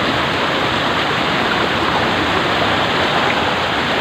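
Steady rushing of river water pouring through and over a bamboo-slat fish trap.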